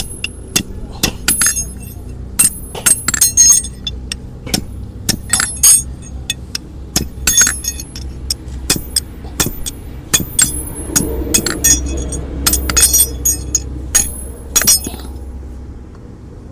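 Irregular sharp metallic clicks and clinks, often in quick clusters, from a farrier's tools working on a horse's hoof. They stop about a second before the end.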